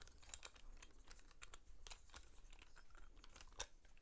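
Faint clicks and rattles of a plastic chest-mount phone holder being handled and worked apart by hand, with one sharper click about three and a half seconds in.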